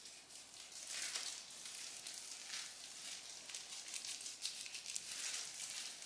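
Plastic-gloved hands working hair dye through strands of hair: soft, irregular rustling swishes with a wet squish.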